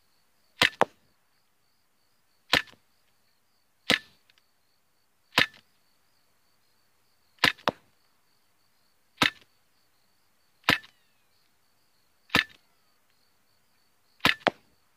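SIG Sauer P320 CO2 air pistol firing .177 pellets in a rapid string: nine sharp shots, about one every one and a half to two seconds, a few of them followed a fraction of a second later by a second snap.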